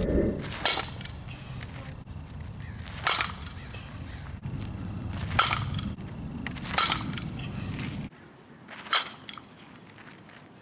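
Sharp impacts of a softball striking a glove and a bat, about six in all, spaced a second or two apart. A low background rumble underneath drops away about eight seconds in.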